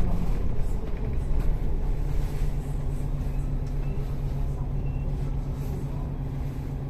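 Public bus engine running at a steady pitch with a low road rumble, heard from inside the bus, with a few light rattles in the first second.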